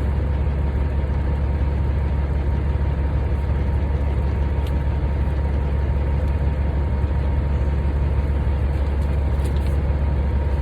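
Heavy diesel engine of a 2002 Peterbilt 387 semi truck idling steadily with a deep, unchanging drone.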